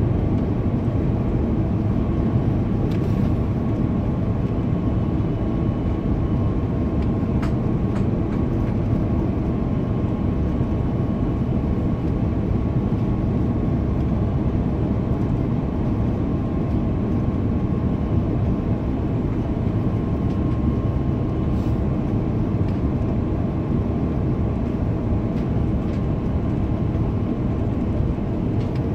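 Steady cabin noise of an Airbus A330-300 descending toward landing: its Rolls-Royce Trent 700 engines and the airflow make a constant low noise with a faint steady whine above it, and a few faint clicks.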